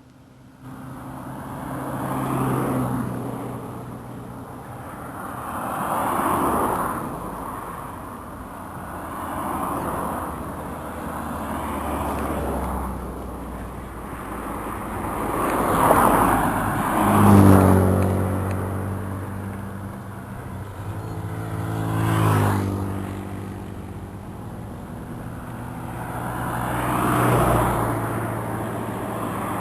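Road traffic: about eight vehicles pass one after another, each a swell of tyre and engine noise that rises and fades. The loudest pass is around the middle, where a vehicle's engine note is clearly heard going by.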